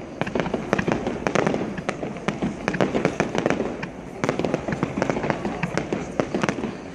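Fireworks display: a dense, rapid run of sharp cracks and bangs from bursting shells, many reports a second with no break.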